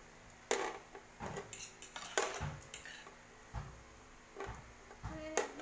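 Metal tongs clinking and scraping on an electric grill plate as pieces of grilled pork are turned: a handful of separate sharp clinks with a few duller knocks between them.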